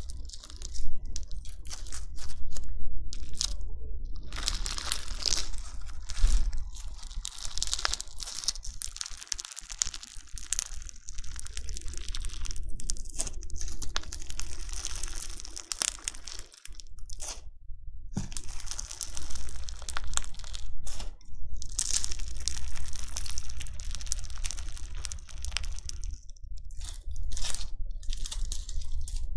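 Crunchy bingsu slime being worked by hand, giving a dense crackling crunch. It comes in runs broken by a few brief pauses.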